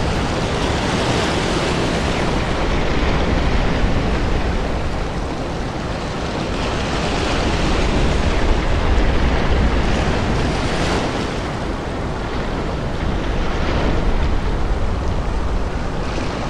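Steady rushing noise with no music, swelling and easing slowly a few times.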